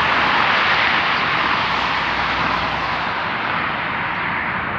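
Steady outdoor rushing noise, loudest about a second in and slowly easing off.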